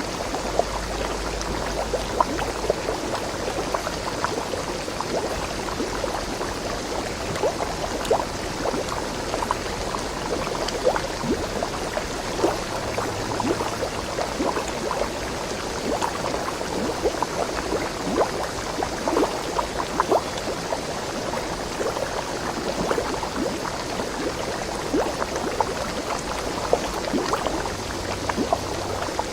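Flowing stream water gurgling steadily, with many small splashes.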